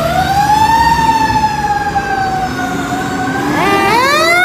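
Fire-engine siren wailing: the pitch sweeps up, sinks slowly over a few seconds, then climbs again near the end.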